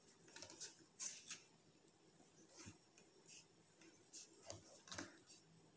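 A handful of faint, scattered taps and light scrapes of a kitchen knife against a bamboo cutting board as it slices through a firm slab of besan milk cake.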